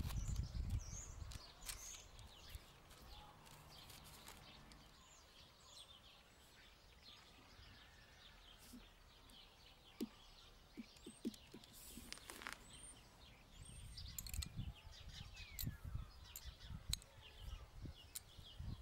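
Faint outdoor ambience with small birds chirping in the background. Low rumbles come near the start and again in the last few seconds, and a few soft knocks sound around the middle.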